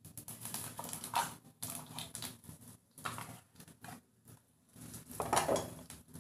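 Thick, wet ground-lentil paste being scraped out of a steel bowl and dropped into a pan of hot oil and whole spices: irregular soft scrapes and plops, with a few louder scrapes spread through.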